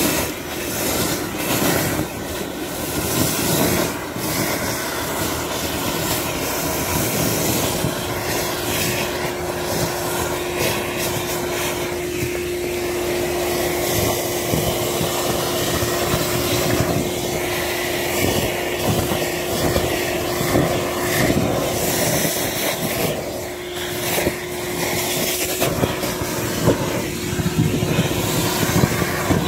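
Gutter vacuum running with a steady motor whine, its corrugated hose sucking wet mud, grit and leaves out of a channel drain, with irregular crackles as debris goes up the hose.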